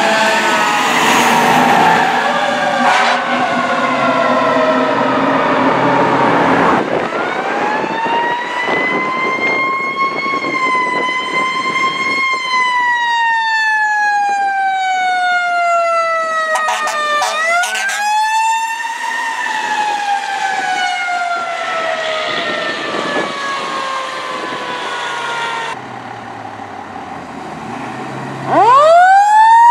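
Fire truck sirens wailing. First several sirens fall in pitch together. Then a single siren rises and falls slowly, broken by a brief fast yelp about halfway through. Near the end a siren winds up sharply in pitch.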